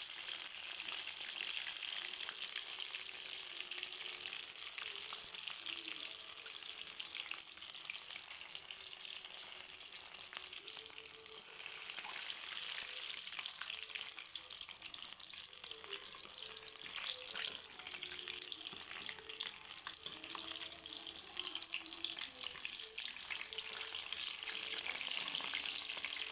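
Breaded chicken pieces frying in hot oil: a steady sizzle with many fine crackling pops.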